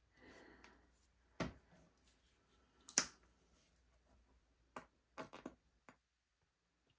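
About six faint, separate clicks and taps from small tools and materials handled on the work surface, the clearest two about a second and a half and three seconds in, while metallic acrylic paint is dabbed in dots onto a silk screen stencil laid over polymer clay.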